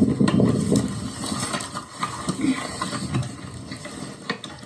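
Field audio from a mortar crew's position: a loud low rumble at the start that dies away over about a second, followed by scattered sharp clicks and knocks of equipment being handled.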